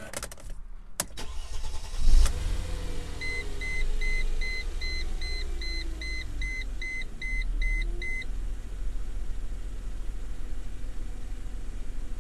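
A few clicks, then the Mercedes M112 V6 cranks and starts about two seconds in and settles to a steady idle. Over the idle, a dashboard warning chime beeps a rapid single-pitched series, about a dozen beeps over five seconds.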